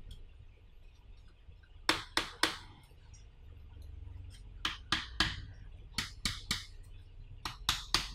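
Sharp clicks and taps from a metal second-HDD caddy being handled and turned over in the fingers. They come in small groups of two or three, with pauses between.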